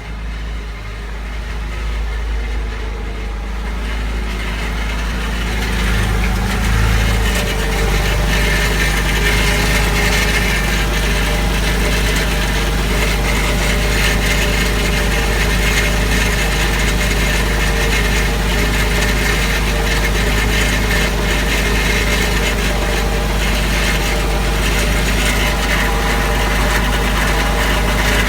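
Porsche Boxster engine idling just after startup, with the noise that the owner is questioning. The sound swells over the first several seconds, then holds steady.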